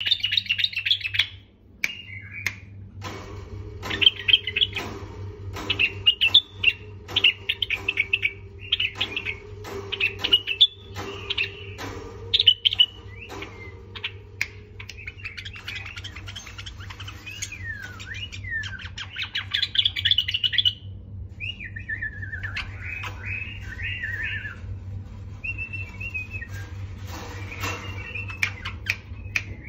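White-eared bulbul singing: short warbled phrases about one a second, then longer runs of warbling with gliding notes in the second half, tailing off to fainter calls near the end. A steady low hum runs underneath.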